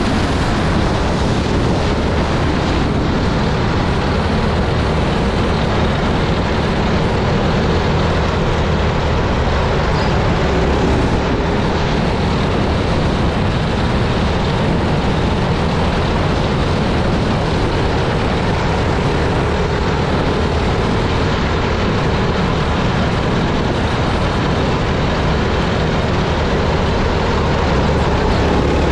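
Small racing kart engine running hard at racing speed, a loud steady drone heard from a microphone mounted on the kart, with dirt and wind noise mixed in.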